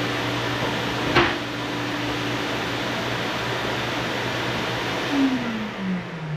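Lincoln Electric Mini Fume X-tractor running with a steady fan whir and hum. It is switched off about five seconds in, and its pitch falls as the motor spins down. A sharp clack of a tool set on the steel bench comes about a second in.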